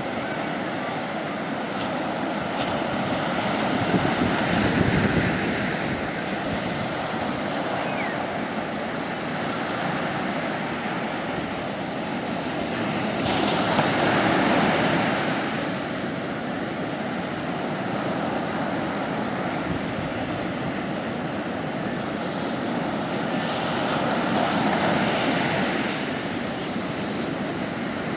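Mediterranean sea waves washing onto the beach in a steady hiss, swelling louder as a wave breaks about every ten seconds, three times in all.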